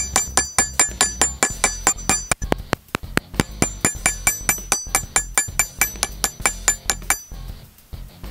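Ball-peen hammer striking rapidly on a steel punch held against a leather strap over a small steel anvil block, setting a rivet: about five sharp, ringing metallic strikes a second. The strikes pause briefly about two and a half seconds in and stop about a second before the end.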